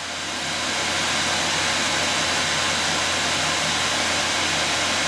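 ASUS Radeon R9 290 graphics card's blower-style cooler fan running at 100% speed under full load, a loud, steady rush of air with a faint high whine. It swells in over the first second, then holds level.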